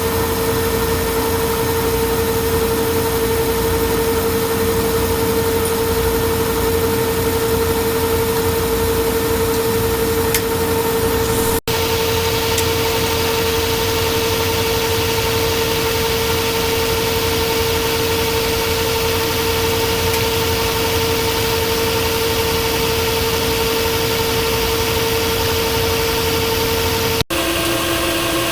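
Monarch Model K engine lathe running while turning a steel part, a steady gear whine over the hiss of a mist coolant sprayer. There are two very brief breaks, and after the second, near the end, the whine is lower in pitch.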